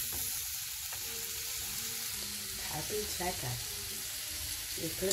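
Apple cubes frying in olive oil in a nonstick pan, a steady sizzle, while a silicone spatula stirs them.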